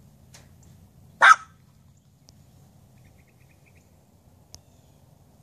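A small long-haired dog barks once, a single short sharp bark about a second in.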